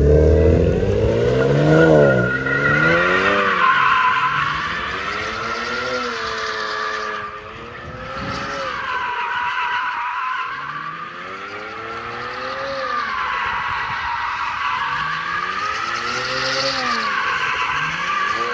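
Widebody BMW coupe drifting: the engine revs rise and fall over and over while the rear tyres squeal continuously in long wavering screeches as they are burned off.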